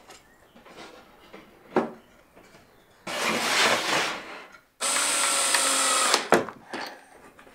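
Cordless drill driving a screw into a pine frame: the motor runs steadily for about a second and a half, then stops abruptly. Before it, the wooden frame scrapes across the bench as it is shifted into place.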